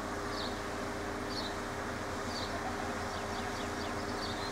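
Steady outdoor background of low hum and hiss, with a short high chirp repeating about once a second.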